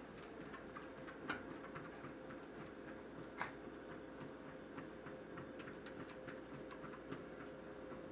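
Treadmill running with a steady motor hum, overlaid by light irregular ticking and two sharper clicks, at about one second and three and a half seconds in.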